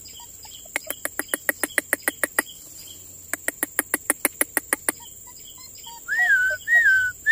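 Bird calls over a steady high insect drone: two bursts of a rapid clicking trill, about nine clicks a second, then three short whistled notes that rise and fall near the end.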